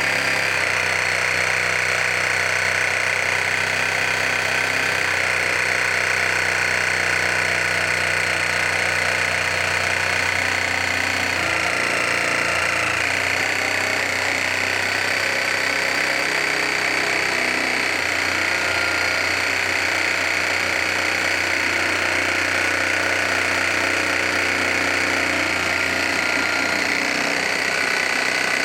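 Cordless reciprocating saw running steadily and cutting through wood without a break.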